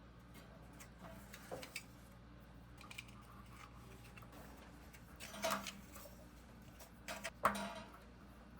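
Light clicks and knocks of small parts being handled and fitted, with two louder knocks about five and a half and seven and a half seconds in, over a faint steady low hum.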